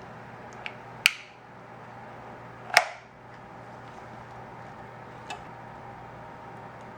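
Two sharp clicks, about a second and three seconds in, with a few fainter ticks, as parts are snapped or plugged into place on a quadcopter drone, over a faint steady hum.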